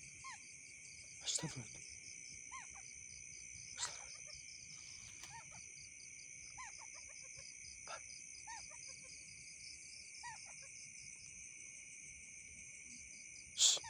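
Night chorus of crickets and other insects: a steady high shrill with a fast pulsing trill, with short faint rising-and-falling calls every couple of seconds. A few sharp clicks cut through it, the loudest near the end.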